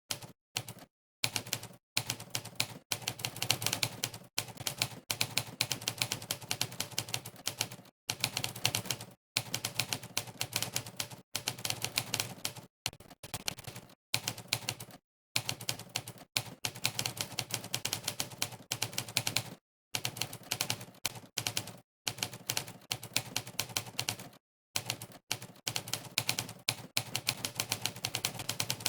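Monkeytype's typewriter keypress sound effect, one sampled typewriter strike per keystroke, clicking in fast continuous runs of typing that are broken every second or two by short dead-silent pauses.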